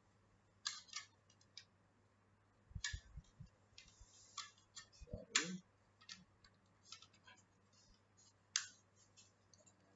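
Irregular light plastic clicks and scrapes as a 2.5-inch SSD is pushed into a clear plastic USB hard-disk enclosure and the case is fitted shut, the sharpest click about five and a half seconds in.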